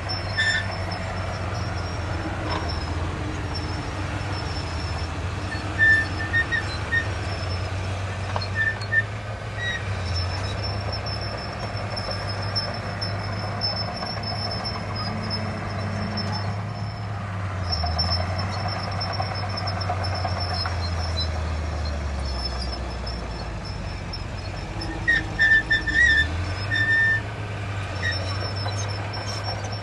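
Diesel engine of heavy earthmoving machinery running, its revs rising and falling, with a thin high whine through much of it. Short high squeaks come now and then, a cluster about a quarter of the way in and another near the end.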